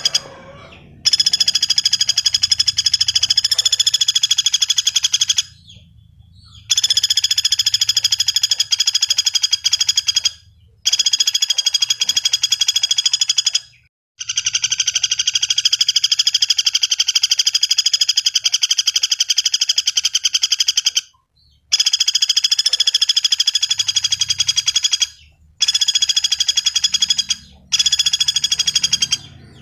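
Common flameback woodpecker (pelatuk bawang) calling in long, rapid, high-pitched rattling trills, about seven of them, each one to several seconds long, with short pauses between.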